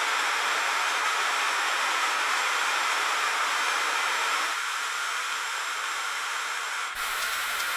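Freezing rain falling on a street: a steady, dense hiss of drops. It eases slightly a little past halfway, then changes abruptly near the end, with a faint low rumble coming in.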